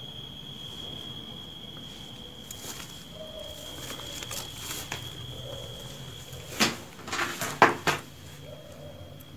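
An insect's steady high-pitched trill, like a cricket's, over faint rustling. About two-thirds of the way in, a quick cluster of four or five sharp knocks and scrapes is the loudest sound, and after it the trill carries on fainter.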